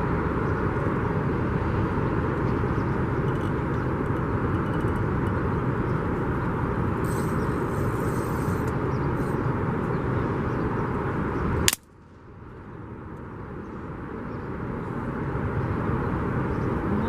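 Steady rushing wind noise buffeting the microphone. About twelve seconds in a sharp click cuts it off suddenly, and it then swells gradually back to full strength.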